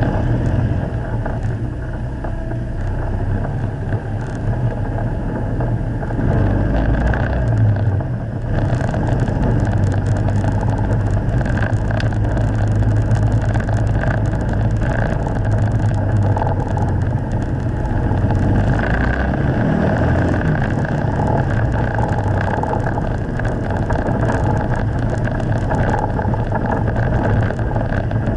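Steyr-Puch Haflinger's air-cooled two-cylinder boxer engine running steadily under load, heard on board while driving on a gravel track, with tyre and rattle noise over the drone.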